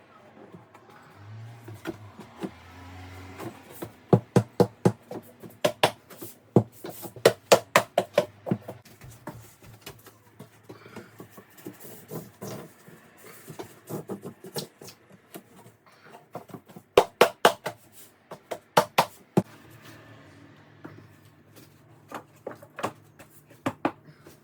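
Bursts of sharp knocks and taps, about three to four a second, with quieter gaps between the bursts.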